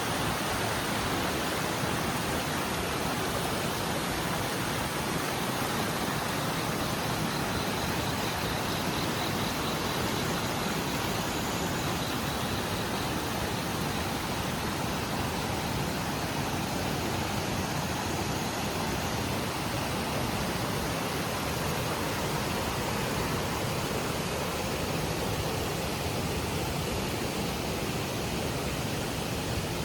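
Steady rushing of water from Itaide Falls, an 8-metre waterfall, pouring into the river.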